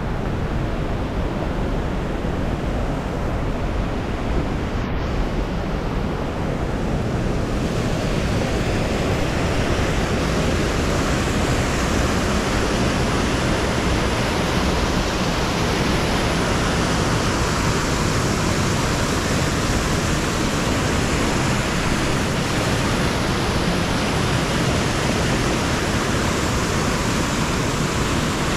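Waterfall: a steady rush of falling water, with the hiss growing brighter about seven or eight seconds in.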